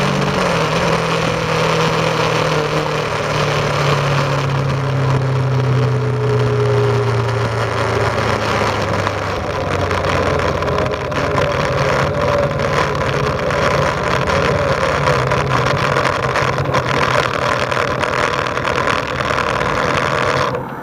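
Suzuki GS500E parallel-twin engine running through an aftermarket exhaust as the bike slows after a full-throttle run. The revs fall from about 6,500 rpm over the first several seconds, then hold at a low, steady note, with wind rush throughout.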